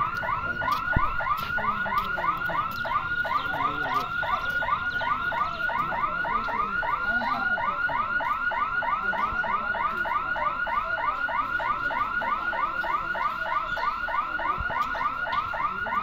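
Level-crossing gate warning hooter: a quick rising electronic chirp, repeated evenly about three or four times a second, warning that the boom barrier is closing. It cuts off suddenly near the end.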